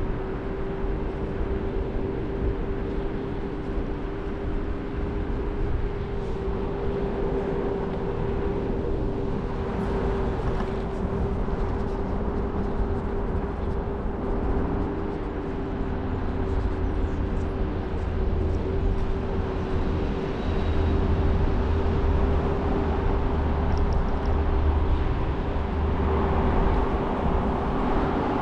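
Scooter running at a steady cruising speed: one steady tone held at constant pitch over a low rumble of wind and road noise, which grows louder in the second half.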